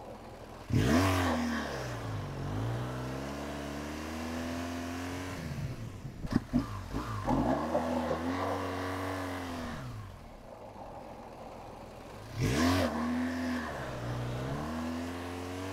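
Large adventure motorcycle launching hard on gravel: the engine revs up sharply with a spray of gravel from the spinning rear wheel, climbs and drops through gear changes, eases off for the tight turn and pulls away again. A second hard launch comes about twelve seconds in.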